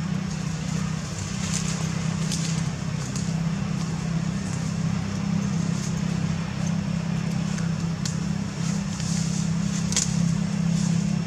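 A steady low mechanical hum from a running motor, with scattered faint clicks and crackles over it.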